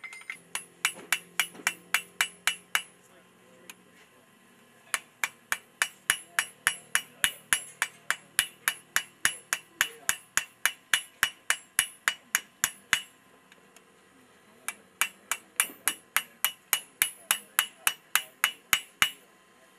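Blacksmith's hammer striking red-hot railroad-spike steel on an anvil, forging a tomahawk head: sharp, ringing blows about three a second. They come in three runs with two short pauses.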